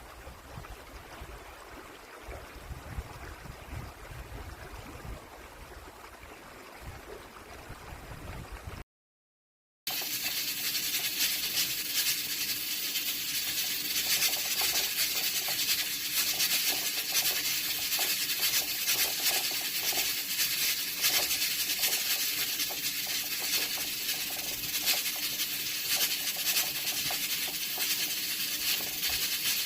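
A stream flowing with wind for the first nine seconds, then a short silence. After that, a rice cooker cooking, with a steady hiss and fine rattling.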